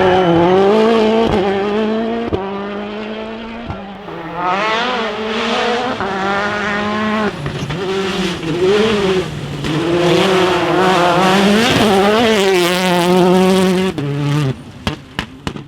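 Rally car engines revving hard, the pitch rising and falling with throttle and gear changes. The sound breaks off abruptly a few times near the end.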